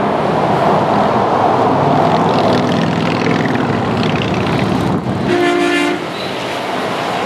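Steady highway traffic noise from cars, trucks and motorcycles passing. A little over five seconds in, a truck's air horn sounds once, briefly.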